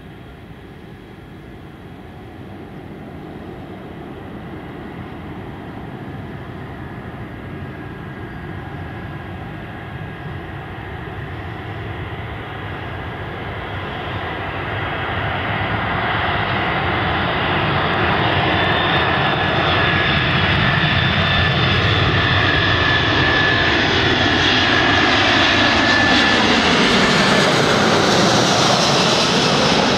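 An Airbus A340's four jet engines on final approach, growing steadily louder as the airliner nears, with a high engine whine over the rumble. The pitch drops as it passes overhead near the end.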